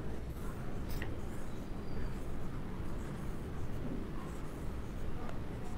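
Marker pen drawing lines on a whiteboard: faint strokes and small squeaks over a steady low hum.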